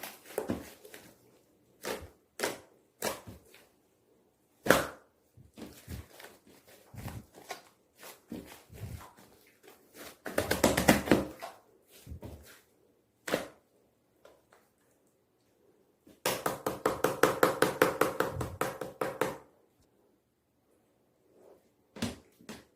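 Slime being squished and poked by hand: scattered sticky clicks and pops, a denser crackling squish about ten seconds in, and a fast run of popping clicks from about sixteen to nineteen seconds.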